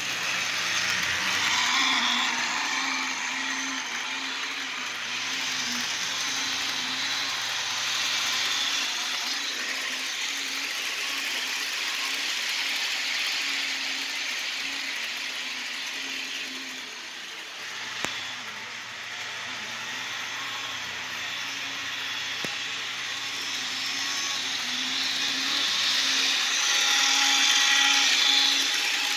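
Model train running around the layout: the locomotive's small electric motor whirs steadily with wheels rattling on the track, getting louder near the end as it passes close. A single click about eighteen seconds in.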